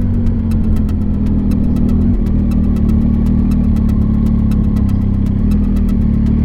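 Triumph Tiger 800 XRT motorcycle's three-cylinder engine running steadily on the move.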